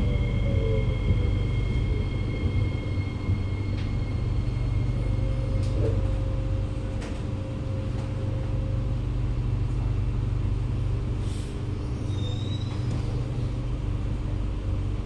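Kawasaki Nippon Sharyo C751B metro train heard from inside a carriage as it brakes to a stop at a platform. A whine falls in pitch in the first second, and high steady tones cut off about five seconds in. Under them is a steady low rumble, with a few light clicks.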